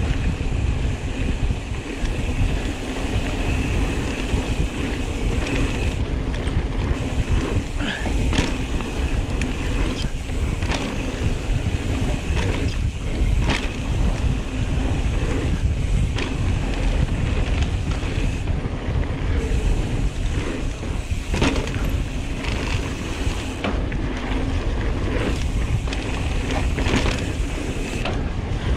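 Mountain bike riding down a dirt trail: wind buffeting the camera microphone over a steady rolling rumble from the tyres, with frequent short clicks and knocks as the bike rattles over bumps.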